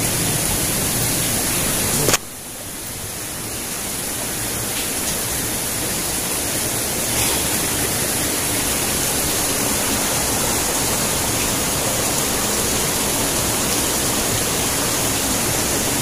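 Steady rushing of stream and waterfall water, an even hiss. About two seconds in it drops suddenly, then builds back up over the next few seconds.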